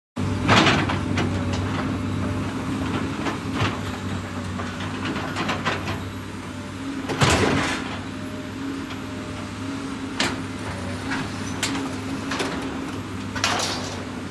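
A steady engine-like drone with a constant pitch, in the manner of a heavy-equipment sound effect. Over it come scattered knocks and scrapes as a toy excavator is pushed over piles of foam toy rocks; the loudest are about half a second in, about seven seconds in and near the end.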